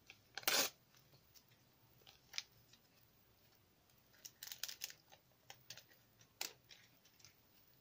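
Paper rustling and crinkling as it is handled, in scattered short bursts; the loudest comes about half a second in.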